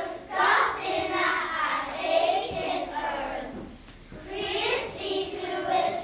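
A group of children singing together, with a short break between phrases about two-thirds of the way through.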